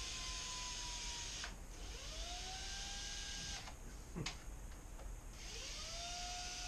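Cordless battery drill turning a socket on the loosened casing bolts in short runs. Its motor whine rises as it spins up and sags as it slows, because the drill's battery is flat. There are three runs, with a sharp click a little after the middle.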